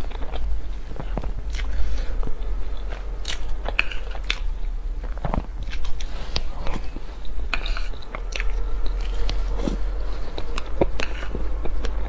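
Close-miked person eating soft cream-covered cake: wet chewing and mouth sounds with frequent small clicks, over a steady low hum.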